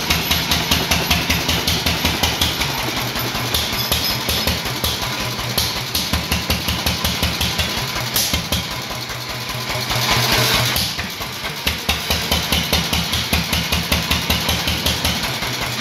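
Early-1930s Sundial 4 hp hopper-cooled stationary engine running with an even beat of firing strokes, about four a second. An aerosol spray can hisses briefly about ten seconds in.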